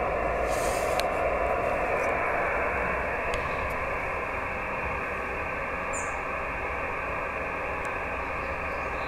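Steady hiss of receiver noise from an Icom IC-910H transceiver's speaker, cut off sharply above about 3 kHz by the set's SSB filter, with no signal audible over it. A few faint clicks and a brief high chirp about six seconds in are heard above the hiss.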